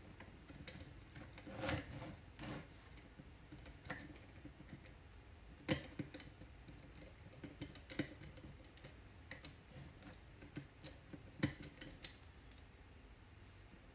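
Faint, scattered clicks and taps of hands handling a stripped motor wire and the small robot while it is fitted into the screw terminal block of an Arduino motor shield, with the sharpest clicks about 6 s and 11.5 s in.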